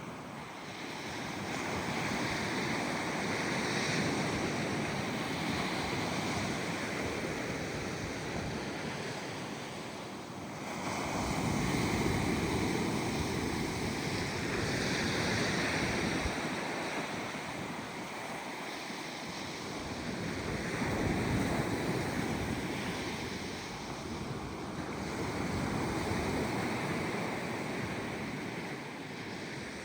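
Gentle ocean waves breaking and washing up the beach, the surf noise swelling and easing every few seconds, with a little wind on the microphone.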